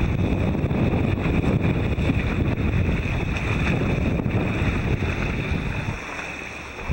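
Wind buffeting the microphone over the rush of water past a sailboat's hull and wake while it sails through a choppy sea. The wind noise eases near the end.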